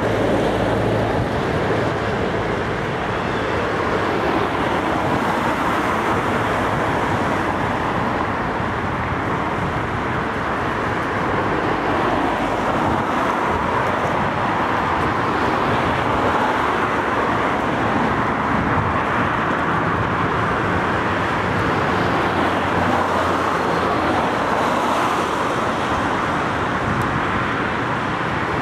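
Steady road traffic noise: cars passing on the road beside the riverside walkway, a continuous hiss of tyres and engines without distinct events.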